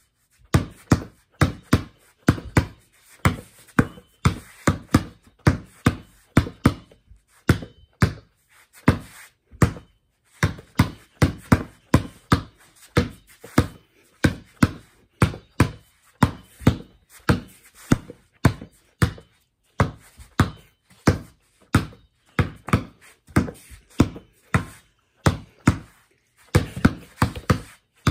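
Basketball being dribbled on a hard floor, bouncing repeatedly at about two to three bounces a second, with a few short breaks in the rhythm.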